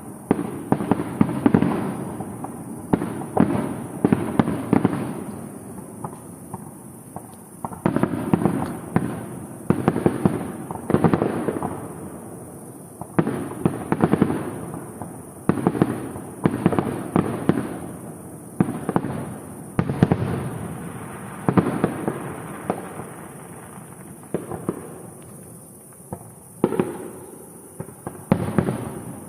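Fireworks going off one after another: clusters of sharp bangs and crackles every second or two, each group trailing off in a fading, echoing rumble.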